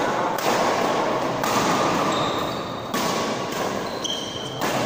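Badminton rally in a large sports hall: rackets hitting the shuttlecock every second or so over a steady wash of hall noise.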